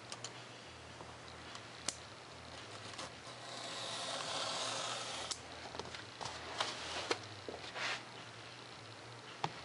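Hobby knife blade drawn through foam board along a plastic ruler: a scratchy slicing hiss lasting about two seconds, starting a few seconds in, with scattered small clicks and taps of the blade, ruler and board.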